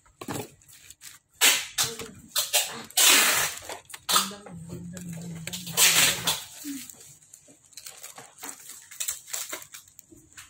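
Bubble wrap and a plastic bag crinkling and rustling in irregular bursts as they are unwrapped and pulled off a phone screen, the loudest crackles about 1.5, 3 and 6 seconds in.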